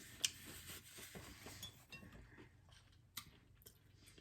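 Quiet eating and table-handling sounds: soft chewing with two sharp clicks, one just after the start and one about three seconds in.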